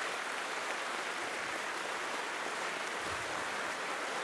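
Large audience applauding, a steady clatter of many hands clapping.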